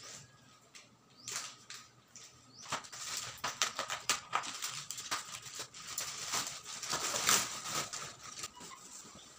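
Black plastic stretch wrap on a shipping box being snipped with scissors and torn off, crackling and rustling. The crackling starts a few seconds in and dies down near the end.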